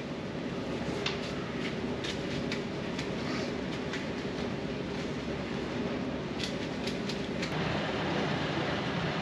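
A concrete mixer's engine running steadily, with short scrapes and taps of wet concrete being shoveled and troweled out of a wheelbarrow into a floor trench. About three-quarters of the way through the rumble turns suddenly brighter and a little louder.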